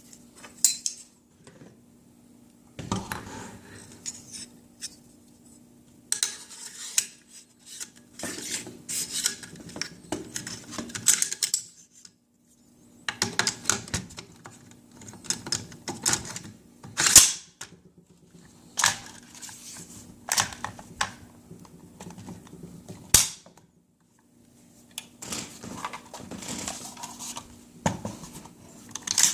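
AR-15 rifle parts being handled and worked by hand: irregular metallic clinks, scraping slides and clicks, with a few sharp single clicks as parts snap into place.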